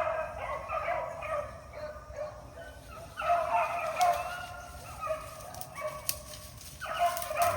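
A rabbit hound baying while running a rabbit's scent trail, in three bouts of repeated cries: one at the start, one from about three seconds in, and one near the end.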